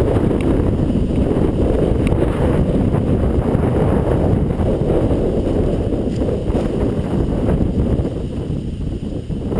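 Wind buffeting the microphone: a steady low rumbling noise, with a few faint clicks.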